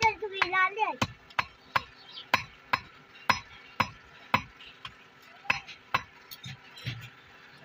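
Hand hammer striking a red-hot steel strip held in tongs on a small steel anvil stake while forging a hook: sharp metallic blows about two a second, becoming fewer and more spaced out toward the end.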